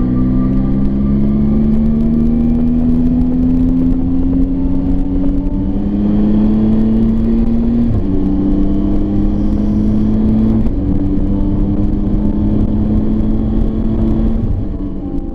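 Triumph Tiger 800 XRT's three-cylinder engine pulling on the road. Its note rises slowly and drops in steps several times as the gears are changed up.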